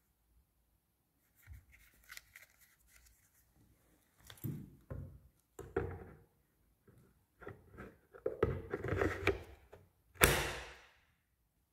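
Hard plastic knocking and scraping as a Parkside X20V Team battery pack is handled and slid into the inflator's battery slot, ending in one loud sharp snap about ten seconds in as the pack latches home.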